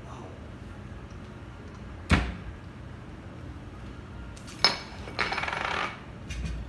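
Metal knocks and clinks from handling a Flair 58 manual lever espresso maker: a sharp knock about two seconds in, another about four and a half seconds in, then a brief rattling.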